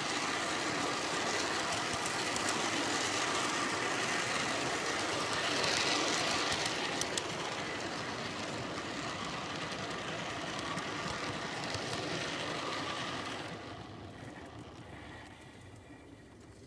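G-scale garden train's wheels rolling along the track, heard from on board the caboose: a steady rolling rattle with a few sharp clicks and a faint steady whine. It drops away about three-quarters of the way through and goes on faintly to the end.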